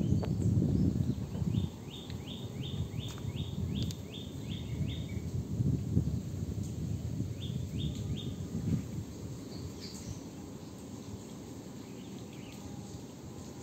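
A bird calling in a quick run of about a dozen sharp chirps, about four a second, then three more a few seconds later, over a low rustling of dry leaves and twigs that is loudest in the first couple of seconds.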